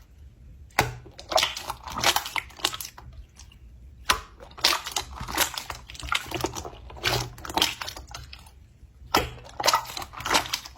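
Sticky, squishy crackling in short bursts of rapid clicks and pops, about four bursts with short pauses between, as a soft tacky material is squeezed and pulled apart.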